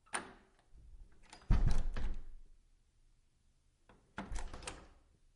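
Old wooden door: a latch click, then the door shut hard with a heavy thud and rattling knocks about a second and a half in, followed by a second, lighter closing knock near four seconds in.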